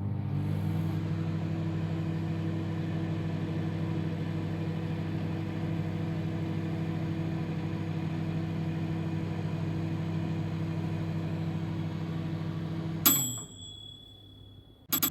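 Anton Oliver 800W microwave oven running with a steady hum, then about 13 seconds in its timer bell dings once and the hum winds down as the oven shuts off at the end of the cycle.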